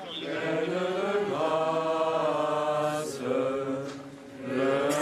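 A crowd of people singing together in slow, held notes, with a short break about four seconds in before the next phrase.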